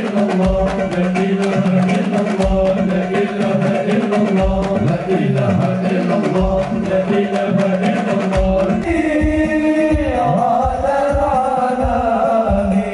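Sholawat devotional singing with hand-drum accompaniment. Deep drum beats fall every couple of seconds, then come quicker in the second half, over steady lighter strokes.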